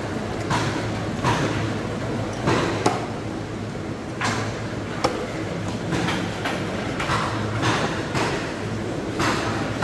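A knife cutting into a stingray: about a dozen short strokes or chops at an uneven pace, roughly one every half second to second, over a steady low background hum.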